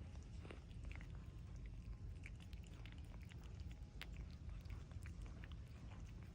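A cat chewing, with irregular small crunching clicks over a low steady background.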